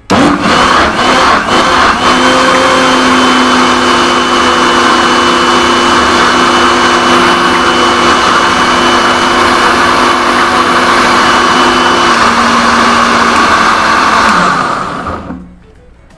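Butterfly Rapid 750-watt mixer grinder blending chopped beetroot and carrot with water in its jar. It starts abruptly, runs loud and steady for about fourteen seconds, then is switched off and winds down over about a second.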